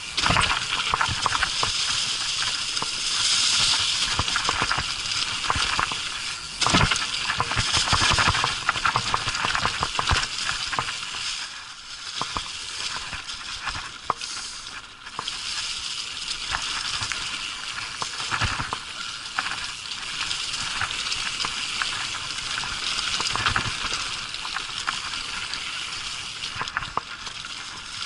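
Mountain bike tyres rolling fast over dry fallen leaves on a dirt trail: a steady rustling hiss, with frequent knocks and rattles from the bike over bumps and roots.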